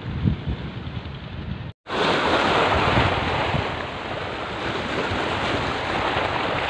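Wind buffeting the microphone, then after a short gap about two seconds in, a steady rushing of wind and small waves on the shallow sea.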